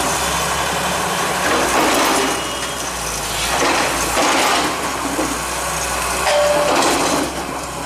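Hydraulic excavator's diesel engine running steadily as its bucket breaks through a masonry wall, with bursts of crumbling and falling rubble about two, four and six and a half seconds in.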